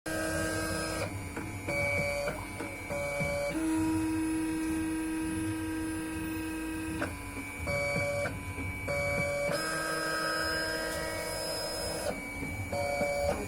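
Stepper motors of a sticker cutting plotter whining as it kiss-cuts a sticker sheet. The whine jumps between a few steady pitches and stops and starts every second or two as the blade carriage and rollers move.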